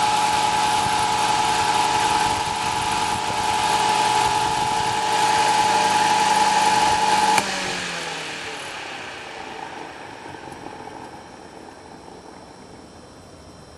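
Vintage Zero table fan's electric motor running with a steady whine and a rush of air from the blades, its freshly oiled bearings running freely. About halfway through there is a click, the motor whine stops at once, and the fan coasts down, its whir falling in pitch and fading.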